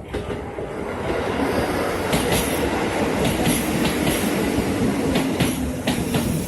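Keikyu Daishi Line electric train running past, its wheels clacking over rail joints; the rumble builds over the first two seconds and stays loud.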